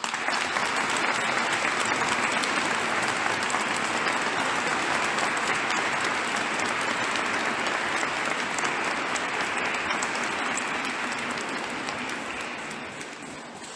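Congregation applauding in a large church: dense clapping that starts at once and fades out near the end.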